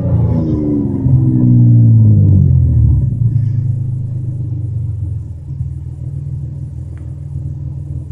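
Toyota Camry engine dropping from high revs back to a steady idle, with a brief small blip of throttle about a second in on the way down. The engine has an exhaust leak, which makes the exhaust loud.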